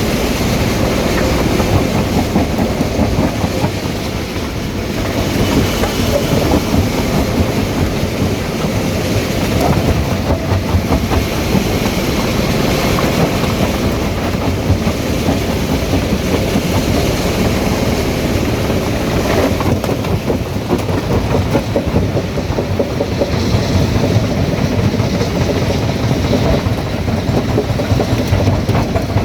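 Stone crusher running, with a dense, continuous clatter and rattle of rock being broken and shaken through the machine.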